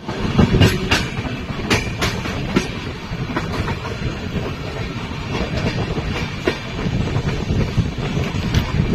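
LHB passenger coaches of an Indian express train running and rattling: a continuous low rumble with irregular sharp clanks and clatter, several close together in the first three seconds.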